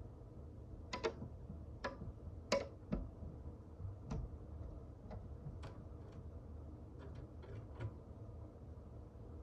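Birds at a feeder tapping and pecking: about a dozen irregular sharp clicks, the loudest clustered in the first three seconds.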